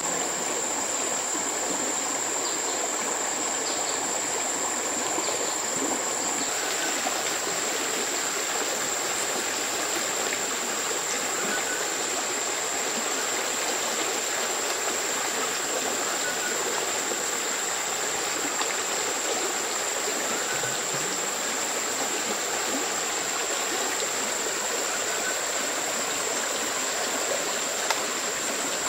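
Steady rushing of flowing water, as of a stream, unchanging throughout, with a continuous high-pitched whine running above it.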